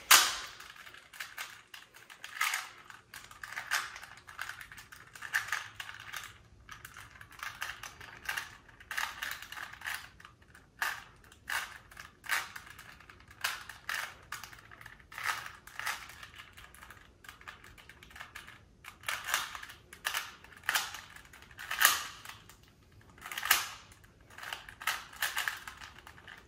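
A 3x3 Rubik's Cube being turned quickly by hand: quick runs of plastic clicking and clacking as the layers rotate, broken by short pauses. The loudest is a sharp clack right at the start.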